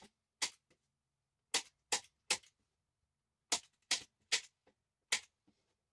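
Hand staple gun firing staples through upholstery fabric into a couch's wooden frame: nine sharp snaps, mostly in quick runs of two or three about half a second apart.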